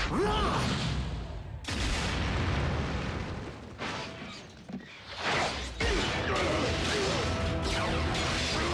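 Animated action-scene soundtrack: music mixed with booms, impacts and whooshing sound effects. It shifts abruptly several times, with gliding electronic tones in places.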